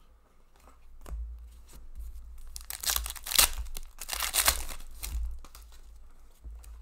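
Foil wrapper of a hockey card pack being torn open and crinkled by hand, in two loud crackly spells about three seconds in and again around four to five seconds. Softer rustles of cards being handled come before them.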